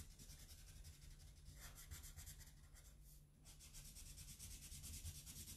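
Faint scratching of a black felt-tip marker drawing lines on paper.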